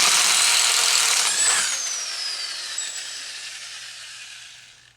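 Impact wrench hammering on a 36 mm axle nut to break it loose. Loud for about a second and a half, then it fades away over several seconds with a falling whine.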